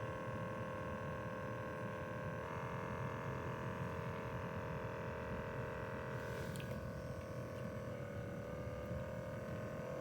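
Automatic digital blood pressure monitor's small air pump running to inflate the arm cuff at the start of a measurement: a steady motor whine over a low rumble, rising slightly in pitch near the end.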